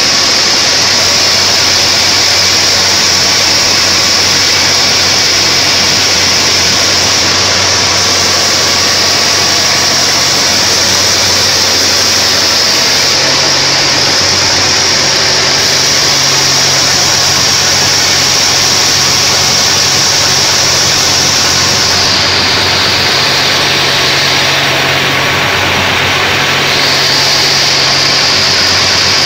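Sawmill bandsaw running and ripping a large mahogany log into a board: a steady loud mix of low motor hum and a high, hissing whine from the blade in the cut. About three-quarters of the way through, the high whine softens for a few seconds, then comes back.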